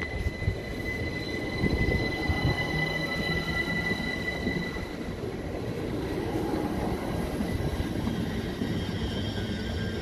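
Class 387 Electrostar electric multiple unit rolling slowly past along the platform, its running gear rumbling under a high, steady squeal.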